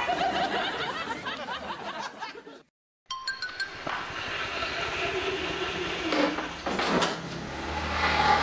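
Background music fades out, then breaks off into a moment of dead silence. About three seconds in, a bright clinking chime starts light background music again.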